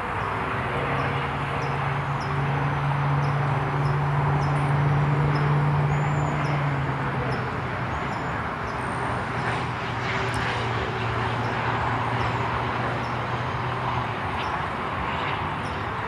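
Steady road traffic noise, with a low engine drone held for several seconds at a time, twice in a row.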